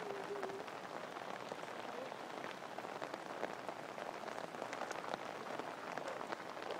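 Water spattering steadily onto a surface: a dense, even spray of drops that does not let up.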